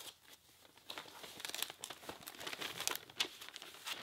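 Shipping box being ripped open by hand: crinkling and short tearing rustles, starting about a second in, with a sharper rip about three seconds in.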